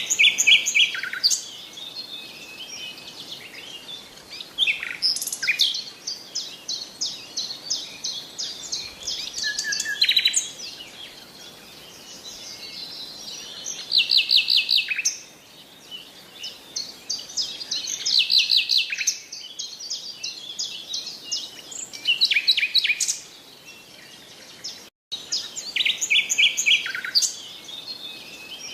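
Songbirds singing: quick high trills and chirping phrases repeated every few seconds. The sound cuts out for an instant near the end.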